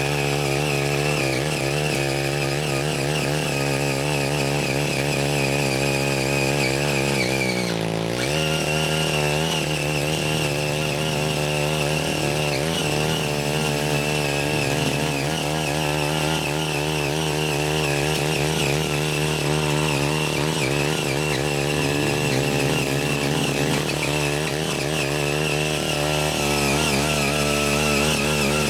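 Small 5 hp engine of a CY80 walk-behind mini tiller running hard under load while its six rotary tines churn through orchard soil. The engine note wavers constantly as the load changes and sags briefly about eight seconds in before picking up again.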